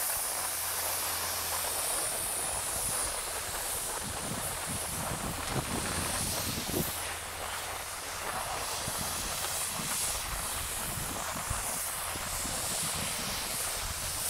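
Steady hiss of packed snow under a rider sliding down a groomed ski run, with irregular low rumbles of wind on the microphone.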